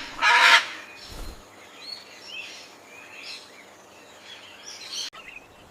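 A bird calling: one loud, harsh, pitched call about half a second long near the start, then faint high chirps, with a sharp click near the end.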